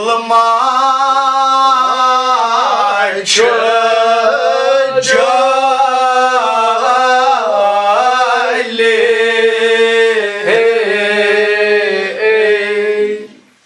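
A man chanting a Kashmiri devotional poem in long, drawn-out melodic phrases, one voice with no instruments, sliding between held notes; he breaks off right at the end.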